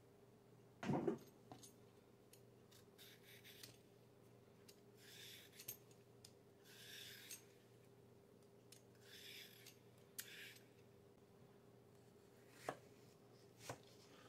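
Vegetable peeler scraping strips of skin off a cucumber in several soft strokes, faint. A knock about a second in, and two light knife knocks on a wooden cutting board near the end.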